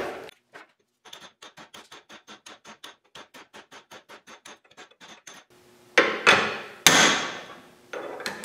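Hammer driving a steel punch through a leaf spring eye to knock out the old rubber bushing's inner sleeve: first a fast run of light taps, about five a second, then from about six seconds in, several heavy blows that ring off the steel.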